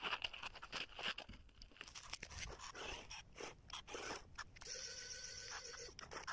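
Small radio-controlled cardboard toy forklift rolling on plastic wheels over gritty pavement, with irregular crunching and scraping. From about three-quarters of the way through, a steady motor whine runs under the crunching.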